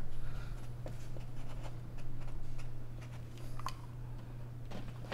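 Sharpie marker writing on blue painter's tape on a wall, with a few faint clicks and a steady low hum underneath.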